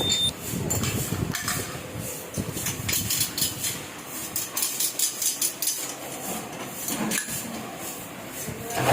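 Heidelberg offset printing press running, a steady machine noise with a quick, repeated clacking of its moving parts.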